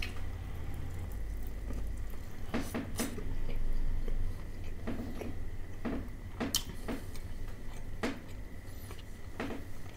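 A person chewing crispy fried chicken close to the microphone: irregular crunches and wet mouth sounds, about eight in all, over a low steady hum.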